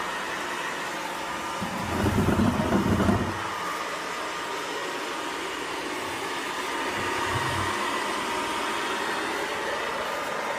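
Haier robot vacuum cleaner running with a steady whirring hum, with a louder low rattling rumble for about a second, two seconds in, and a shorter fainter one later.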